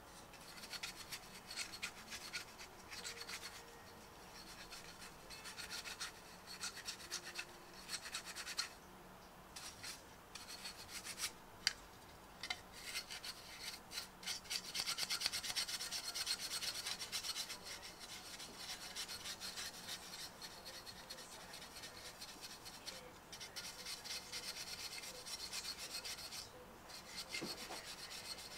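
Bristle brush scrubbing dust off a PC blower cooling fan's plastic housing and blades: rapid, scratchy back-and-forth strokes in spells with brief pauses, busiest midway through.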